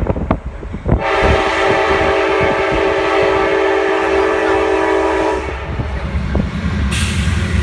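Amtrak Crescent passenger train's locomotive horn sounding one long chord-like blast of about four and a half seconds, starting about a second in, over the low rumble of the moving train.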